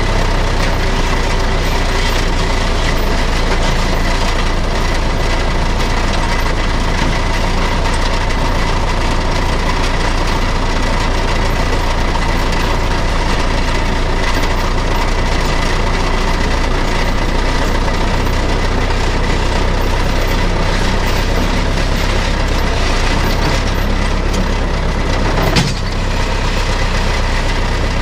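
Old Chamberlain 9G tractor's diesel engine running steadily under the driver's seat while it backs a trailer, with a single sharp knock near the end.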